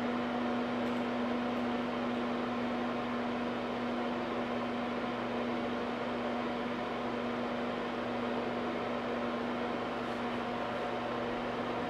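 Steady electrical hum with an even hiss from a Bertan 210-01R high-voltage power supply running into a 2 kΩ load.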